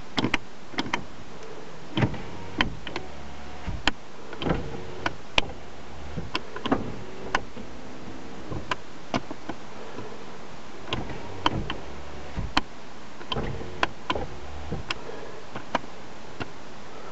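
Power window motors of a 2005 Mitsubishi TW Magna running in several short stretches, with sharp clicks as the newly fitted window switch is pressed and released over and over. The windows respond, so the replacement switch works.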